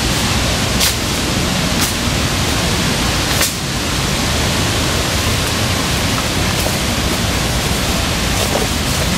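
A steady rushing hiss with a few faint clicks.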